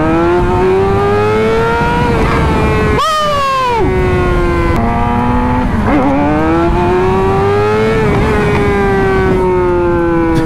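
Motorcycle engine while riding, its pitch climbing and falling with the revs over a steady rush of wind noise. About three seconds in, a higher engine whine breaks in briefly and glides sharply down.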